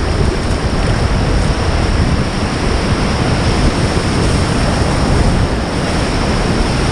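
Steady rush of river water around a raft, with wind buffeting the microphone.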